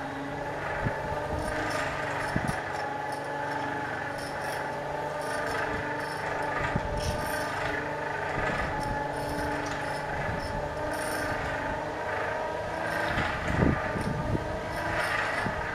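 Coal forge being blown, a steady mechanical whir and rush of air that swells about every two seconds, with a sharp knock near the end.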